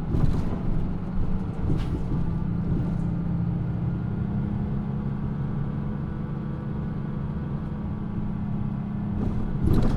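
Mitsubishi Fuso PA-MK25FJ city bus's diesel engine running steadily at low revs, heard from inside the bus; the bus is known for running low in the revs and for an unusual noise. A few short clatters break in, the loudest near the end.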